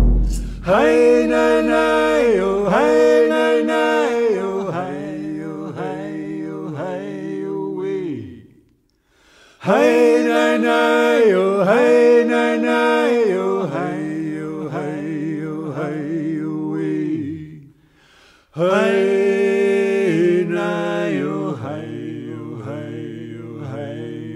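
A man singing an unaccompanied chant in vocables ("hey, nay, nay, you"). There are three long phrases, each stepping down in pitch, with short breaks between them.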